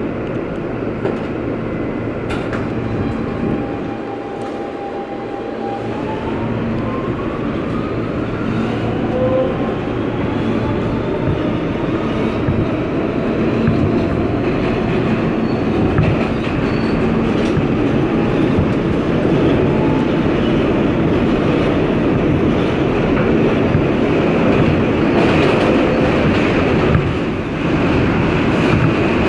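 R160B subway car with Siemens propulsion pulling away from a station: a whine holds one tone, then climbs in pitch over several seconds as the train accelerates. Under it, the noise of the wheels on the rails grows louder.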